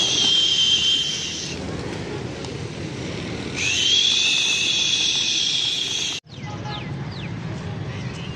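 Two long, steady high-pitched whistles, the second starting with a slight upward slide, sound over the rustle and flutter of a large flock of feral pigeons feeding. About six seconds in the sound cuts off abruptly, and a quieter outdoor background with a few faint chirps follows.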